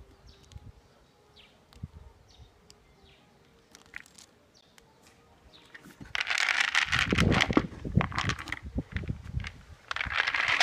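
Sprouted maize seeds poured from a plastic bucket onto a hydroponic fodder tray: a loud grainy rattle of many seeds clattering, starting about six seconds in, easing briefly and starting again near the end. Before that only faint scattered ticks and chirps.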